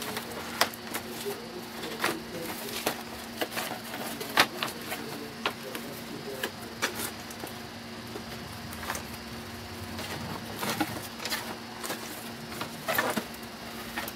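Cardboard toy box with a clear plastic window being handled and opened: irregular crinkles, taps and scrapes of card and plastic, several louder ones near the end.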